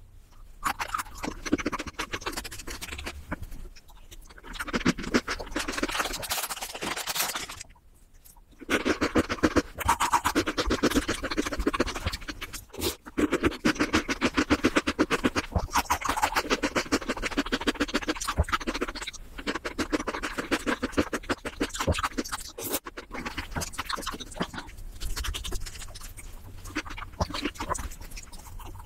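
Close-miked eating sounds: a spoon scraping through shaved-ice bingsu and fast, crunchy chewing of the ice, broken by two short pauses in the first eight seconds.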